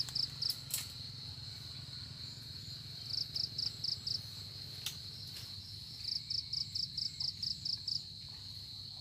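Insects calling: a steady high-pitched drone, joined twice by runs of rapid chirps at about six a second. A few faint clicks.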